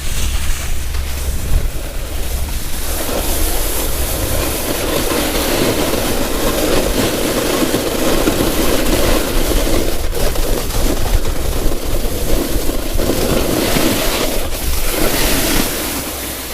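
Snowboard base and edges scraping and chattering over icy, wet snow while riding downhill, a steady rough grinding hiss that builds about three seconds in and eases near the end.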